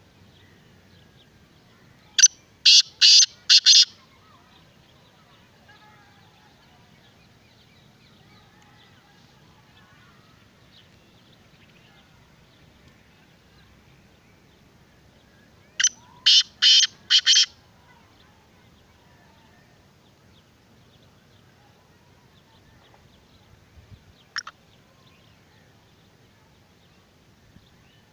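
Black francolin calling twice, about thirteen seconds apart, each call a quick phrase of four or five loud notes. A faint single note follows near the end.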